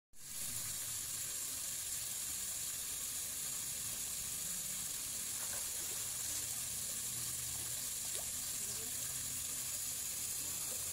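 Steady high-pitched hiss over a low rumble of open-air ambience, even throughout with no distinct events.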